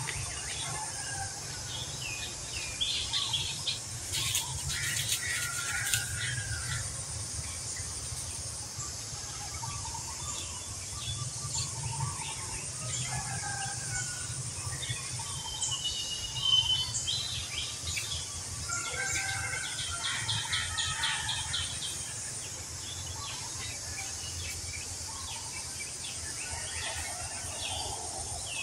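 Birds chirping and calling at intervals, with a rapid trill about two-thirds of the way in, over a steady high hiss of outdoor ambience.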